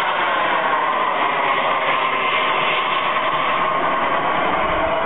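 Engine of a radio-controlled model jet flying overhead: a steady rushing noise with a whine that shifts slowly in pitch.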